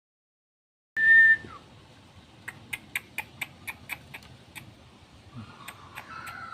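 A single short, loud whistled note that falls away at its end, followed by a run of about ten sharp chip calls, roughly four a second, from a wild songbird, with a few more chips near the end.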